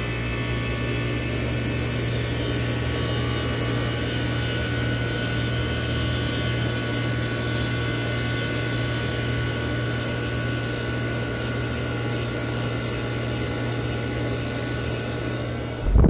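1984 Amana 24,000 BTU air conditioner running with its Tecumseh AB compressor: a steady low hum under the even rush of the fan. It ends in a brief loud thump.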